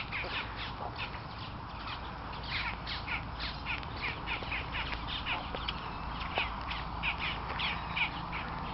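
A group of birds calling over and over, with many short, sharp calls coming several a second throughout. The birds are being fed scraps.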